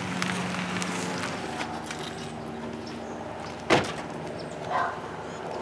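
A vehicle door shutting with a single sharp thump a little over halfway through, over a steady low hum, with a softer knock about a second later.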